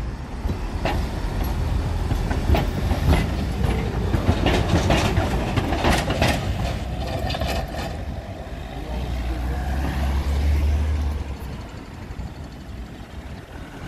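Tram rolling past close by, its wheels clattering over rail joints and the points of a junction in a run of sharp clicks and knocks over a low rumble. Around nine seconds in a car's low rumble rises and then fades.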